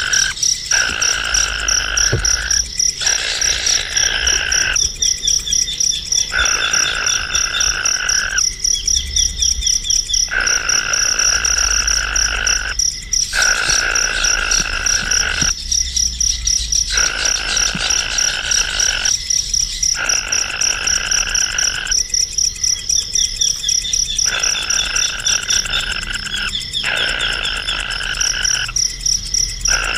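Animal calls: a steady, high, rapidly pulsed trill, with a lower pulsed call that starts and stops every one to three seconds.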